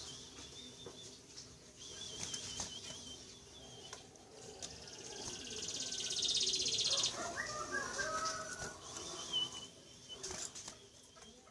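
Sunbird calls played as a lure: high, wavering trilled notes, then a loud, very fast buzzy trill about halfway through, followed by a few short, lower chirps.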